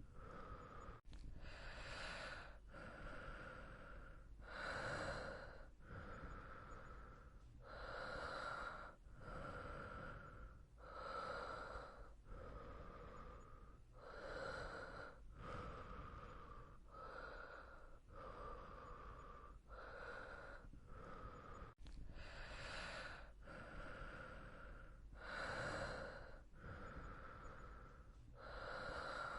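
A person breathing steadily in and out, each breath a rush of air, in an even rhythm with a louder, deeper breath every few seconds.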